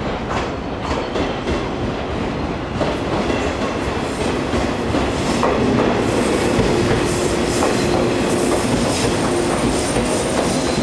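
JR electric commuter train pulling into a station platform, its wheels clacking over rail joints. The sound grows louder about six seconds in as the cars pass close by.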